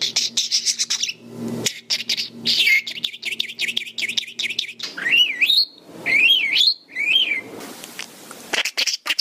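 Male budgerigar warbling: rapid clicking chatter, then a run of looping whistles that rise and fall about halfway through, ending with a few clicks.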